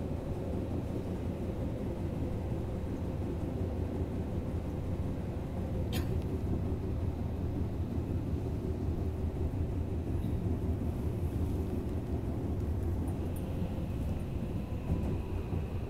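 Tokyo Metro Yurakucho Line subway train running between stations, heard from inside the car: a steady low rumble of wheels and running gear. A single sharp click comes about six seconds in, and a faint high whine joins near the end.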